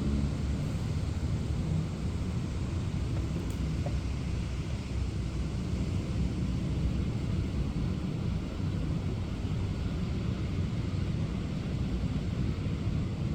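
Steady hiss of rain with the low rumble of passing traffic, a louder vehicle rumble fading away in the first couple of seconds.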